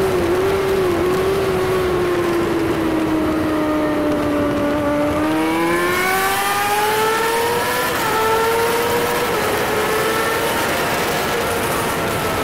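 Sport motorcycle's engine heard onboard at track speed, with wind rush. The note sinks slowly for the first few seconds as the bike slows through a corner, then climbs as it accelerates out, with a slight dip about eight seconds in before it pulls on.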